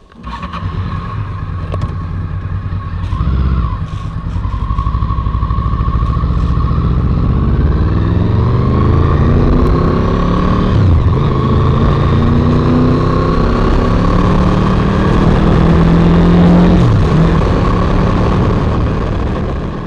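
Honda VFR800's V4 engine pulling hard on the open road, its pitch climbing as it accelerates and dropping at a gear change about halfway through, with wind noise on the microphone.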